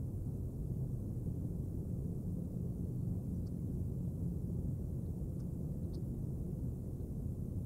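Steady low rumble of outdoor background noise on the camera's microphone, with three faint, short high chirps around the middle.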